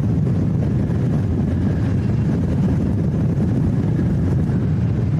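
Steady low rumble of a Boeing 747-8F freighter's four GEnx jet engines, with no distinct events.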